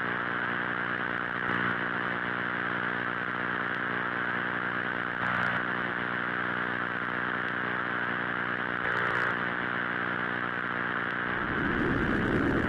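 Synthesized 'space sound' drone: a steady buzzing hum of many evenly spaced low tones under a band of hiss. Near the end it turns into a rougher, louder low noise without the clear tones.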